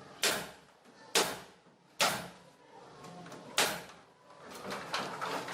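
Four sharp knocks at uneven spacing, each with a short ring-out.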